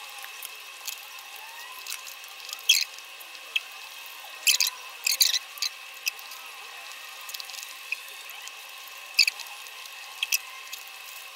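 Close-up chewing of a cheeseburger: irregular wet mouth clicks and smacks, with a steady thin high whine underneath. The sound is thin, with no bass at all.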